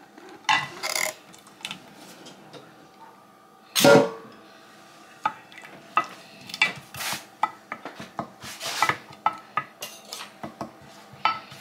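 Wooden spatula scraping and tapping against a glass baking dish while sauce is spread in it, in a run of short clicks and scrapes, with one louder clunk about four seconds in.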